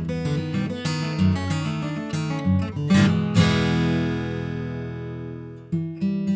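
Taylor 114 acoustic guitar, solid Sitka spruce top with laminate sapelli back and sides, being played: picked notes and chords, then a strummed chord about three seconds in that is left to ring and fade for a couple of seconds before playing picks up again near the end.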